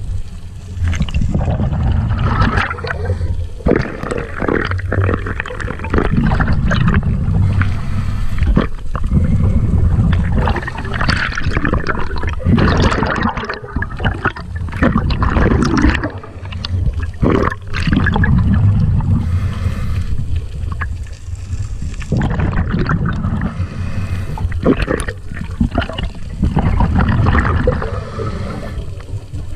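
Water rushing and gurgling around an underwater camera as the diver swims, with a constant low rumble and irregular splashy surges.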